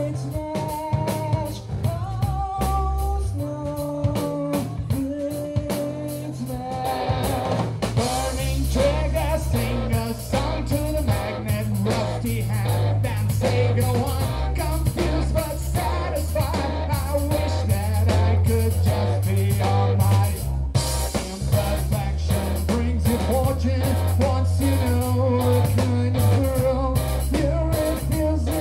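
Rock band playing live: electric guitar, bass and drum kit with a singer. It opens with a sparser guitar passage, then the full band comes in harder about seven seconds in.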